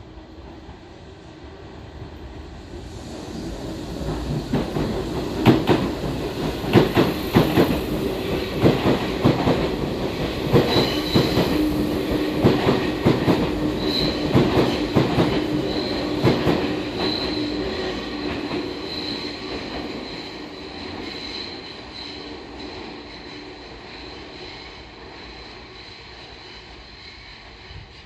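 Tobu Skytree Line train passing through a station without stopping, at slow speed: wheels clacking over rail joints with a high intermittent wheel squeal. It builds up about four seconds in, is loudest through the middle and fades away over the last several seconds.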